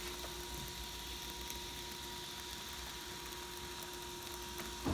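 Roll laminator's motor and rollers running as a sheet feeds through: a steady hum with a faint whine.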